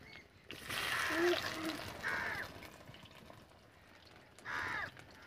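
A crow cawing three times, harsh calls with the last near the end, over the faint sizzle of potato pakodas frying in a kadhai of hot oil.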